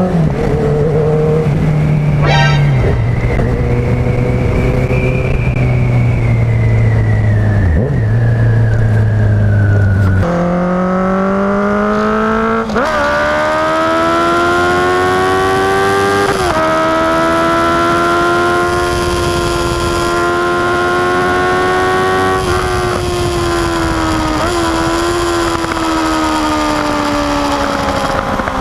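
Honda CB650F's inline four-cylinder engine running through a CS 4-into-2-into-1 full aftermarket exhaust, under way. A short crackle comes about two seconds in. The engine note jumps up in pitch about ten seconds in and dips briefly a few times after that.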